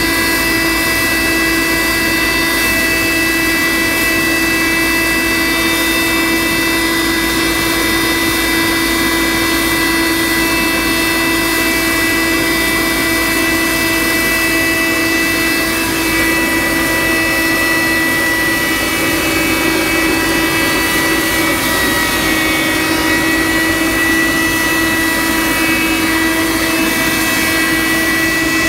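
Pulverizer mill of an aluminum-plastic separating plant running steadily while aluminum-plastic blister scrap is fed into it: a loud, even whine with a hum beneath it over a constant hiss.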